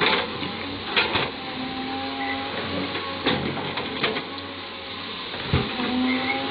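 Caterpillar 320D hydraulic excavator at work: the diesel engine runs steadily under a hydraulic whine whose pitch shifts as the boom and bucket move. The steel bucket scrapes and clanks in loose coal several times, sharpest at the start and about a second in, then again around three and four seconds in.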